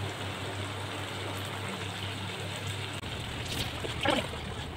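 Chicken curry simmering in a nonstick pan, a steady hiss of cooking gravy over a low hum, with a wooden spatula stirring through it near the end.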